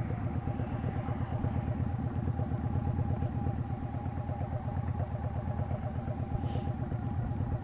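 Engine idling steadily, an even low pulsing with no revving.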